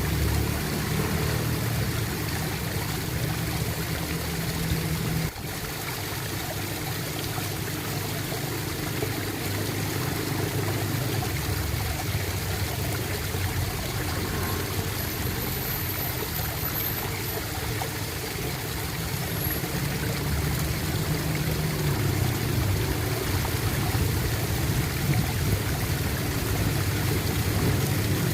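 Water flowing and gurgling steadily, with a short dip in level and a click about five seconds in.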